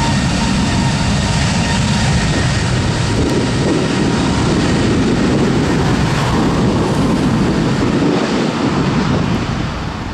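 Airbus A321neo's CFM LEAP-1A turbofan engines at takeoff thrust during the takeoff roll: a loud, steady jet roar with a deep rumble and a thin whine that fades early. The roar drops off near the end as the airliner pulls away.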